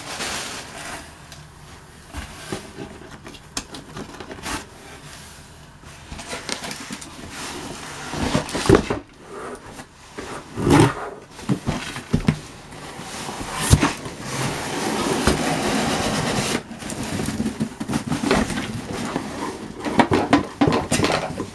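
Cardboard shipping boxes being handled: rustling and scraping of cardboard with a few sharp knocks as flaps are folded and an inner box is pulled out, then a longer stretch of cardboard rubbing in the second half.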